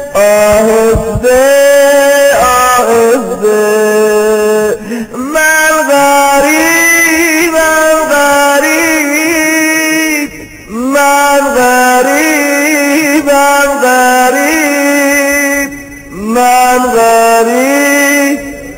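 A solo male voice chanting a Shia mourning lament, unaccompanied, in long melismatic phrases that waver up and down in pitch. The chant breaks off briefly about ten and sixteen seconds in.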